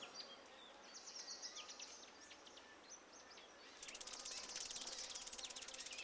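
Faint scattered bird chirps, then about four seconds in a cicada's rapid, pulsing high-pitched buzz starts and keeps going.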